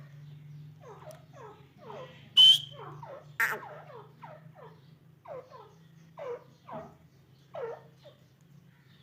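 Grey francolins (teetar) giving a series of short, soft, falling chirps, one after another with small gaps. Two sharp clicks stand out as the loudest sounds, a bit over two and three seconds in, over a steady low hum.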